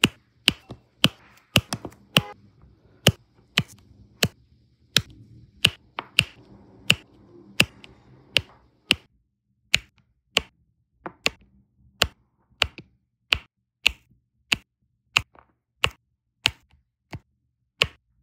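Diamond painting pen tapping round resin drills down onto the sticky canvas one after another, each press a sharp little click, about two a second.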